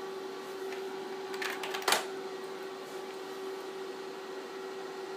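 Mini floppy disk drive working as a disk is mounted: a quick run of sharp mechanical clicks about one and a half seconds in, ending in a louder clack, over a steady hum.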